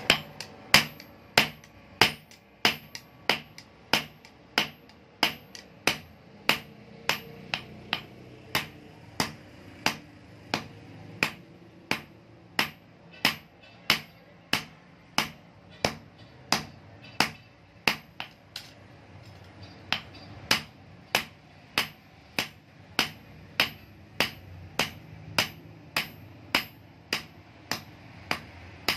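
Hand hammer forging a red-hot knife blade on a steel block anvil: sharp metallic blows at a steady pace of about two a second, each with a short high ring, with a brief pause about two-thirds of the way through.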